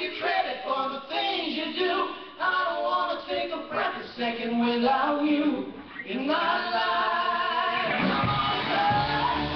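Male and female voices singing together in harmony, with little or no instrumental backing. Near the end, the band comes back in with guitars and a low bass line.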